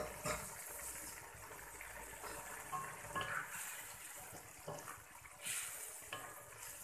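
Cassava leaves simmering in liquid in a metal wok: a steady bubbling and sizzling, with a wooden spatula stirring and scraping against the pan a few times.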